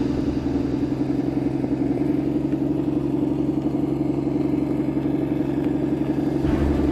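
Electric motor and gear drive of a 1/10-scale Traxxas TRX-4 RC crawler running steadily with a low, even drone. A deeper rumble comes in near the end.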